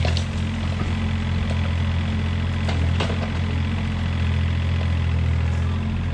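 IHI 30VX mini excavator's diesel engine running steadily, with a few brief sharp knocks as the boom and bucket work at the trench.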